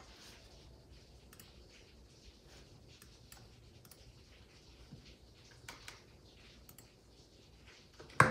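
Faint computer mouse clicks at irregular intervals, with quiet room tone between them.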